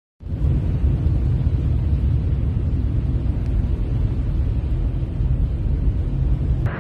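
Car driving through floodwater, heard from inside the cabin: a steady low rumble of tyres and water under the car with a hiss above it.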